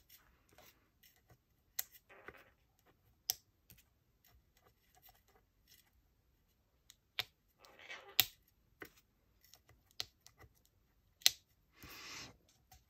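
Scattered light clicks and taps, with a few brief scratchy rustles, from craft tools and paper being handled on a work table. The sharpest clicks come about eight and eleven seconds in.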